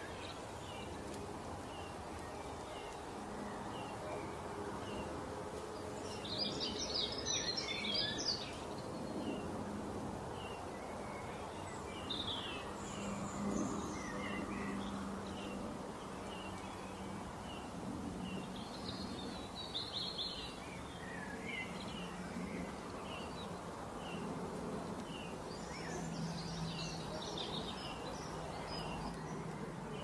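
Songbirds chirping in a steady run of short calls, with a few fuller bursts of song, over a steady background noise with a faint low hum.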